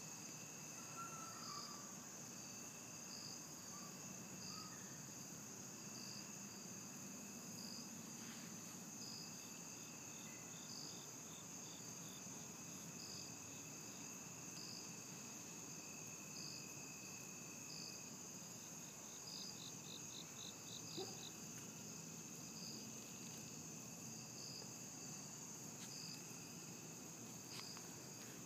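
Faint chorus of crickets: a steady high trill, with another singer chirping about every two seconds, and twice a short, rapid pulsed trill.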